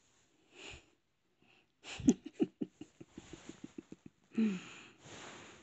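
A dog sniffing rapidly, about seven quick sniffs a second for two seconds. This is followed by a louder short sound that falls in pitch and a breathy rush of air.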